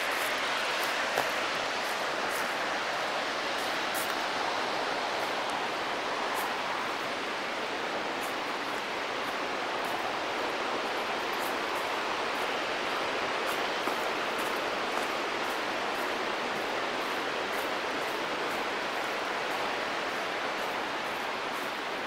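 Steady rush of white water from a mountain waterfall, an even hiss with no let-up, with many faint sharp ticks over it.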